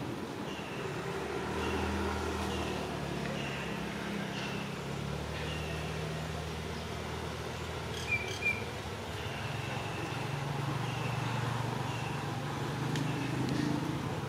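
Low hum of a motor vehicle engine, its pitch shifting slowly, with a bird repeating short high chirps about once or twice a second. A brighter double chirp comes about eight seconds in.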